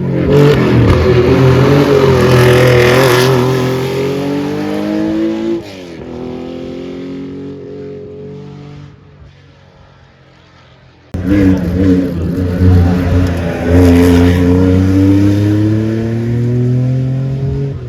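Rally car engine accelerating hard, its pitch climbing, with a gear change about five and a half seconds in, then fading as the car pulls away. About eleven seconds in, a second rally car cuts in suddenly and loud, its engine again climbing in pitch as it accelerates.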